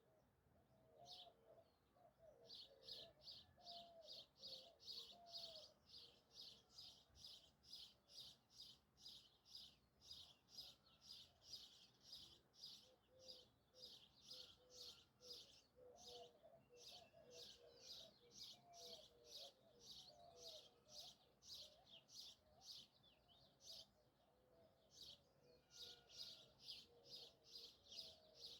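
Birds calling in a faint countryside soundscape: one short, high chirp repeated rapidly, about three times a second, in long runs with brief pauses. Softer, lower, wavering calls sound underneath.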